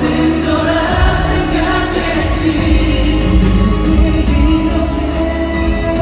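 Pop music with singing over a steady beat and heavy bass, played loud through an arena sound system and recorded from the audience.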